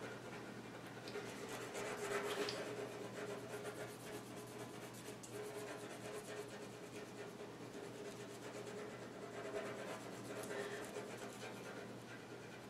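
Coloured pencil shading on drawing paper: a faint, continuous scratching made of rapid short strokes as the background is laid in.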